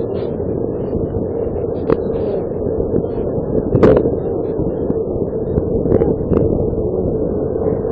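A steady low rumble with a constant hum, broken by a few sharp cracks. The loudest crack comes about four seconds in.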